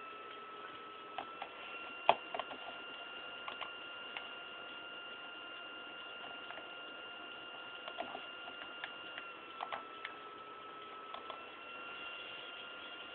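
Steady electrical whine and hum holding several fixed tones over faint hiss, with scattered short clicks and taps; the loudest click comes about two seconds in.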